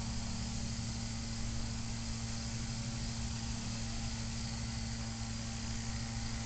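Steady low drone of the RC powered hang glider's small motor running at low power before its takeoff run, under a constant high hiss.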